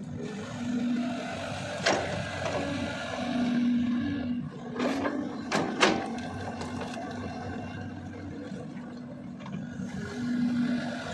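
A Caterpillar 320D L long-arm excavator's diesel engine running under work, its humming tone swelling and easing several times. A sharp knock comes about two seconds in, and a cluster of clanks about halfway through is the loudest part.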